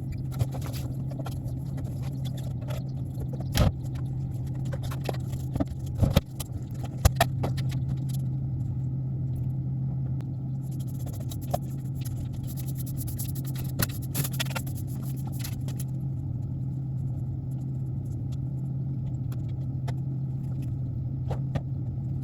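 Steady drone of a vehicle heard from inside while driving, with scattered knocks and rattles, the loudest a few seconds in.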